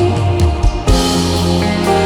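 Worship band playing an instrumental passage between sung lines: held keyboard chords over bass and guitar with light drums, changing chord a little under a second in.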